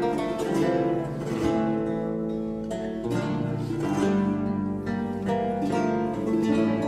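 Renaissance lute music: plucked notes of a melody over lower bass notes.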